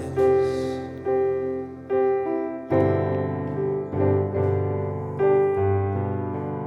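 Piano playing slow chords, struck about once a second and left to ring, with deeper bass notes joining a little under halfway through; no singing.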